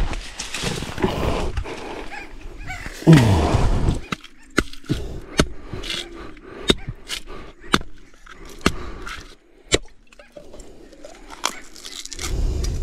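A machete hacking into the husk of a green coconut: sharp, separate chopping strikes about one a second, after a few seconds of rustling and handling. Near the end the fibrous husk is torn apart by hand.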